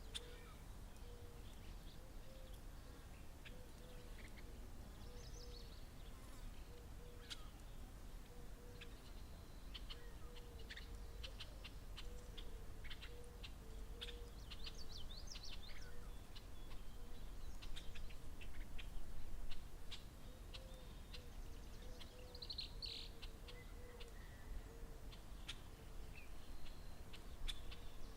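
Birds calling: a low hooting note repeated over and over, with scattered high chirps and trills, over a steady low rumble.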